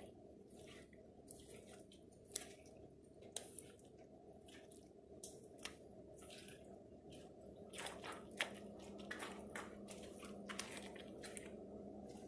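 Boot soles squashing and grinding mashed fruit and crumbled snacks: a scatter of short wet squelches and crackles, coming more thickly in the second half.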